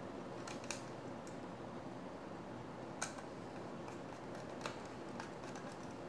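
Screwdriver driving small screws to fasten an SSD into a laptop's metal drive bracket: a handful of light metallic clicks and ticks, the sharpest about three seconds in, over faint steady hiss.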